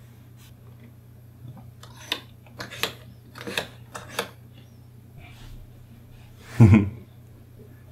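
A string of light, sharp clicks from a child pressing the buttons and knobs of a desktop controller, bunched over about two seconds. Near the end comes a short voice sound.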